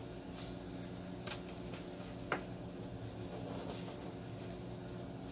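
Faint handling noise as a wiring harness cable is worked on by hand, with two light clicks about a second and two seconds in, over a steady low hum.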